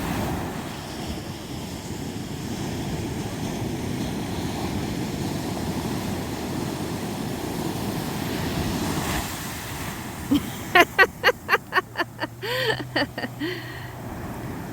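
Ocean surf washing steadily on the beach, with wind on the microphone. Near the end comes a quick run of about ten short, loud pitched calls, a few a second, whose source is not clear.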